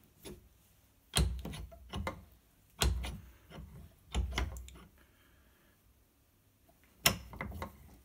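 Victorinox handle scales being pressed onto the rivets of a Swiss Army knife held in a towel-padded bench vise: four sharp clicks and knocks, with fainter ticks between, as the scales are worked on rivet by rivet.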